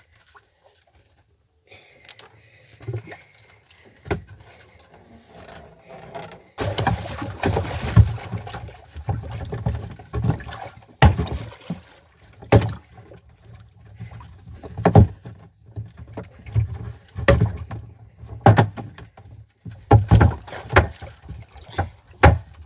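A large hooked tuna splashing and thrashing against the side of a small wooden fishing boat, then a series of heavy thuds, about one every second or two, as it is struck with a wooden club and hauled in with a gaff.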